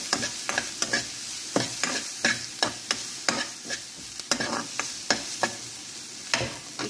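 Chopped onion and garlic sizzling in oil in a nonstick pan, with a spatula scraping and tapping the pan again and again as they are stirred.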